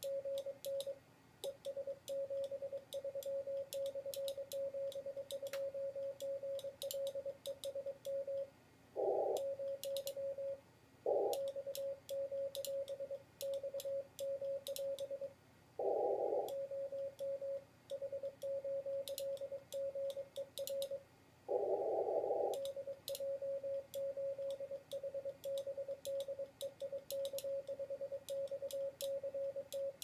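Morse code sent by hand on a gold-plated CT599MB paddle: a fast, near-continuous stream of keyed tone from the radio, with the paddle's light mechanical clicks coming in clusters. Four times a louder, rougher burst breaks in over the tone.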